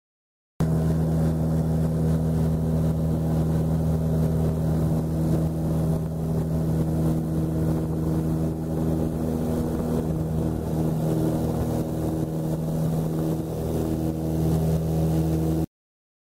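Steady drone of an aircraft's engines heard inside the passenger cabin, a constant low hum with several steady tones over a rushing noise. It starts and cuts off abruptly.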